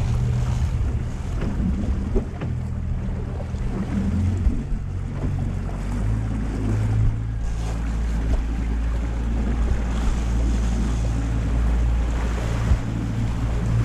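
Small trailer boat's engine running steadily under way, with water rushing past the hull and wind buffeting the microphone, and a few light knocks.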